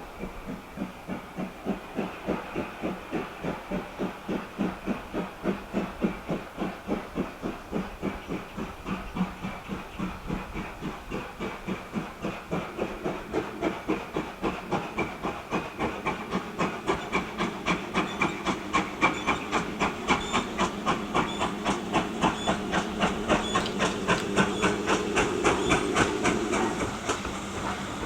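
Steam locomotive working hard, its exhaust beats quickening and growing louder as it accelerates, with a steady hiss of steam.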